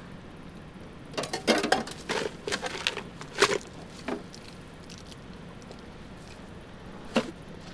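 A quick run of light rustles and small taps, as of objects being handled, for about three seconds. Then a low steady hiss of room tone, with one more tap near the end.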